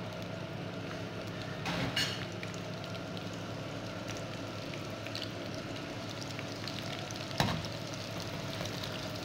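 Chopped onion frying in hot red palm oil in a metal pan: a steady sizzle with light crackles. A brief clatter comes about two seconds in, and near the end a sharp knock as a slotted spoon strikes the pan while stirring.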